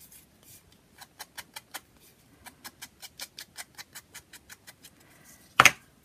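Mini ink blending tool rapidly dabbing Distress ink onto the edges of paper, a quick, even run of soft taps at about six a second. One louder, short noise near the end.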